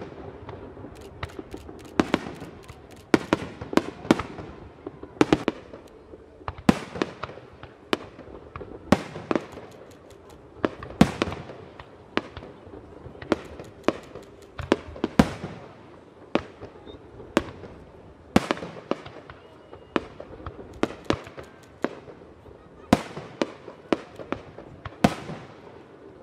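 Aerial firework shells bursting in an irregular barrage of sharp bangs, one to several a second, each trailing off in an echo, with clusters of quicker pops between them.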